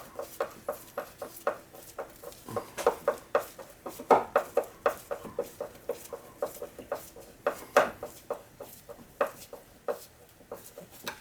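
Irregular light clicks and knocks, a few a second, like small objects being handled and set down.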